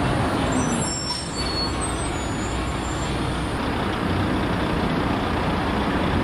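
Steady road traffic noise from passing vehicles, including heavy vehicles such as trucks or buses, with a few faint brief high squeaks about a second in.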